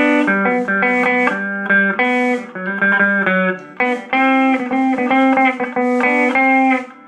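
Gibson Les Paul Custom electric guitar playing a cumbia instrumental passage: rhythmic picked chords and single notes over low bass notes.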